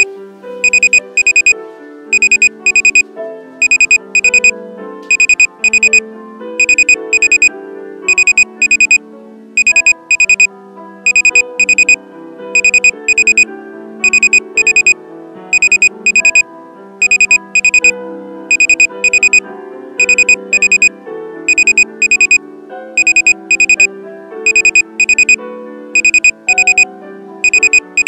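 Electronic alarm beeping: one high tone in quick groups of four, repeating over and over without pause, over background music with a lower melody.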